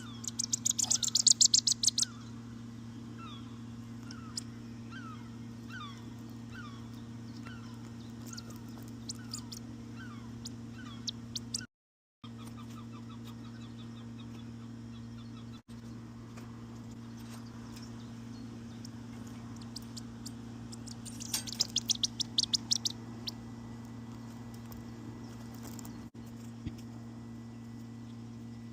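Bird calls: two bursts of rapid, high-pitched calls, one at the start and one about three-quarters of the way through, with softer falling chirps repeated roughly once a second in the first part, over a steady low hum.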